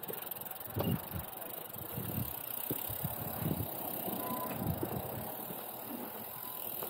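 Gravel bike rolling slowly over paving and tiles, with irregular low bumps and knocks as it rides over the surface, over a steady high hiss.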